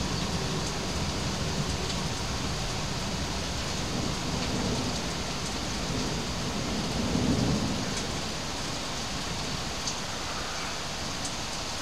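Steady heavy rain in a thunderstorm, with a low rumble of thunder that swells about seven seconds in.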